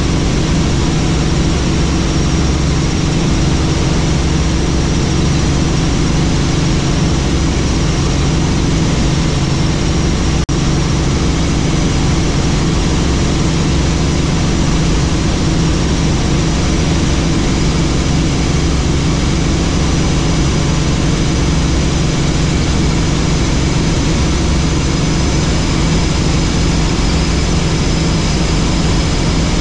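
Helicopter in flight: steady, loud engine and rotor noise with an even low hum, broken once by a momentary dropout about ten seconds in.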